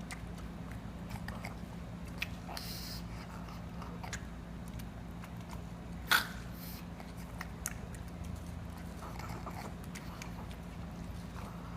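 Pug chewing and biting watermelon: irregular short smacking and crunching clicks, with one much louder sharp snap about six seconds in. A steady low hum runs underneath.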